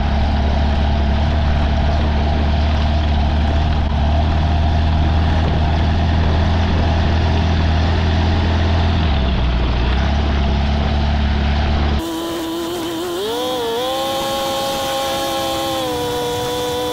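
BRM Citius ultralight's engine and propeller running at low power with a deep, steady drone, dipping briefly about nine seconds in. About twelve seconds in the sound cuts abruptly to a higher engine whine that rises in pitch and then holds steady.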